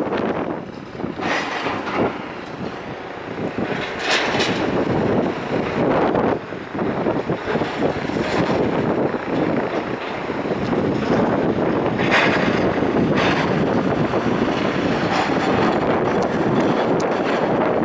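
Strong wind buffeting the microphone in uneven gusts, with a few brief louder rushes.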